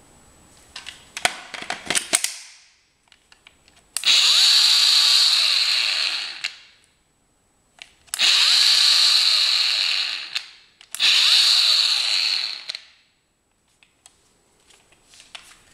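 Bosch GWS 18 V-LI cordless angle grinder, with no disc on its spindle, run three times with no load: each time it comes up to speed at once with a high whine, then coasts down in falling pitch when switched off. Before the runs, a few sharp plastic clicks as the 18 V battery pack is fitted.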